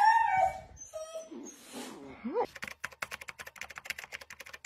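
A very young Siberian husky puppy whimpers and squeals in a few short cries. The first is the loudest and falls in pitch. About two and a half seconds in, a fast run of keyboard-typing clicks takes over, about ten a second.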